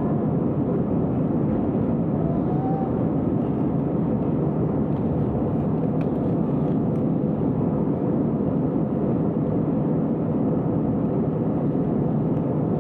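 An AirAsia airliner's jet engines running, a steady, even rushing noise that neither rises nor falls.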